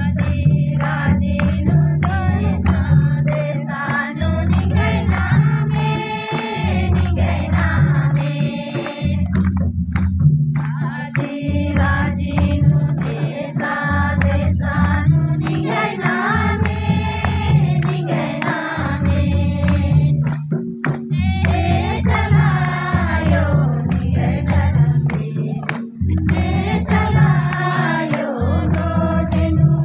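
A bhajan (devotional song) sung in Kurukh over a rhythmic low drum beat, with evenly spaced metallic strikes keeping time.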